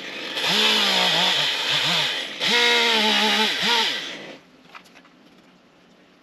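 EGO CS2005 20-inch battery chainsaw running in two loud bursts of about two seconds each, its motor pitch wavering and dipping as the chain bites into wood, then cutting off after about four seconds.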